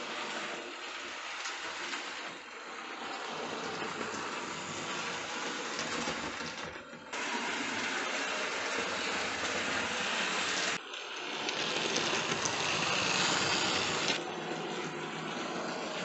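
Hornby OO-gauge model steam locomotive running around the layout: a steady hiss of electric motor and wheels on the track, with a faint hum underneath. It gets louder about seven seconds in and dips sharply for a moment near eleven seconds.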